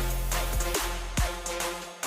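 Electronic dance music with heavy bass and a steady drum beat.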